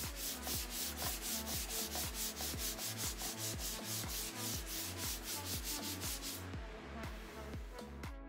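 Hand sanding of a dried shellac-based primer coat on a wooden tabletop with 220-grit sandpaper: quick back-and-forth rubbing strokes, about four a second, stopping a little over six seconds in. Background music with a steady bass beat runs underneath.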